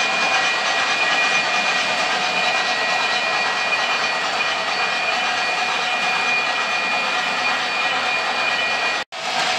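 O gauge model trains running on three-rail track: a steady rumble of wheels and electric motors with a thin whine running through it. The sound cuts out suddenly for a moment near the end.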